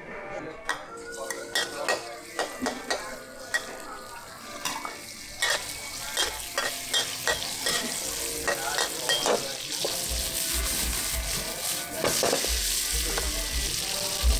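Street-food stir-frying: a metal spatula knocks and scrapes against a wok in quick, irregular strokes, the knocks ringing briefly, over a frying sizzle. About ten seconds in the strikes give way to a louder, steadier sizzle.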